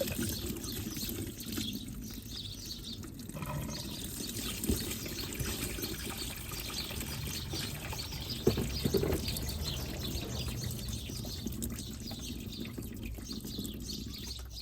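Engine coolant trickling and pouring out of the Volkswagen Passat's disconnected radiator hose, with a few light knocks from work on the hose.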